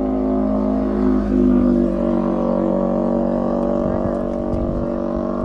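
Boat motor running at a steady speed, holding one even pitch.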